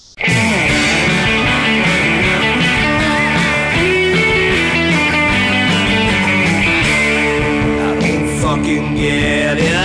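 Loud rock song with electric guitars and drums that starts abruptly a moment in.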